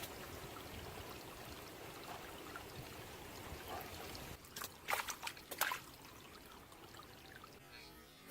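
Water trickling and flowing steadily, followed by a few sharp sounds about four and a half to six seconds in, after which it goes quieter.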